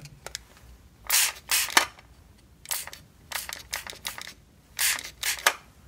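Hand spray bottle spritzing water, about six short sprays in loose pairs, each a brief hiss, onto the roots of succulent cuttings in a small plastic cup.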